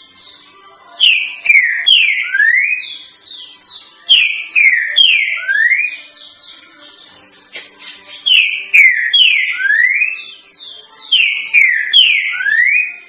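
Green-winged saltator (trinca-ferro) singing its three-note 'boi' song four times. Each phrase is two loud falling whistles followed by one rising whistle, with softer high chips between phrases.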